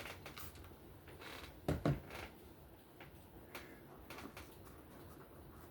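Faint clicks and handling of small metal knife parts and tools on a work surface, with one louder low knock about two seconds in.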